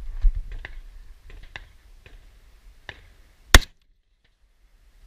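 A single shot from an M1A .308 semi-automatic rifle about three and a half seconds in, very loud and sharp. Faint scattered clicks and knocks come before it.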